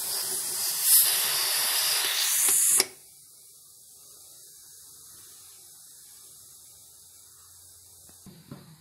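Steam hissing loudly from the open vent nozzle of a pressure cooker boiling on high flame. It cuts off abruptly about three seconds in, leaving only a faint hiss, with a few light knocks near the end.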